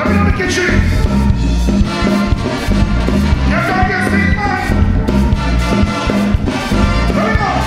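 Live soca band music with an even beat: a horn section of saxophones and trumpets playing over drum kit and bass.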